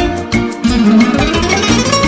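Instrumental music with plucked strings over a steady beat, the melody climbing in a rising run in the second half.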